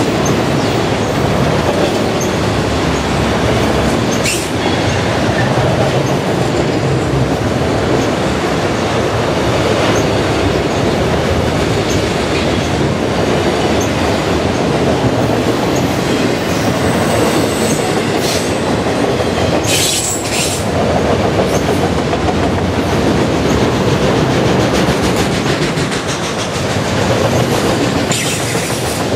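Autorack freight cars rolling past close by: continuous noise of steel wheels running on the rails, with a few knocks and a brief high wheel squeal about two-thirds of the way through.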